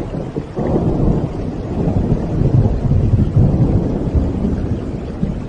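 Thunder: a long low rumble that starts abruptly about half a second in, is strongest in the middle and eases near the end, over a steady storm background.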